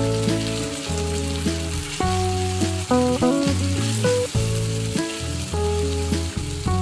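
Background music of held notes changing in steps over a bass line. Beneath it, a frying pan sizzles as cream cooks over fried onion and garlic and is stirred with a silicone spatula.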